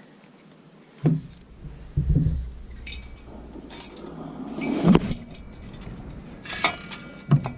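Irregular metal clinks and knocks as engine parts are handled: the cylinder head and its bolts being set in place on a small engine during reassembly.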